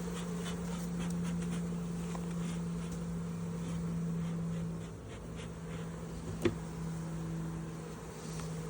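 Honeybees buzzing steadily around an open hive, with one sharp knock about six and a half seconds in.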